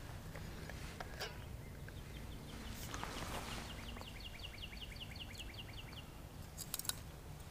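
A songbird calling a fast series of short slurred notes, about five a second, from about two seconds in until about six seconds. The background is faint, with a few soft knocks.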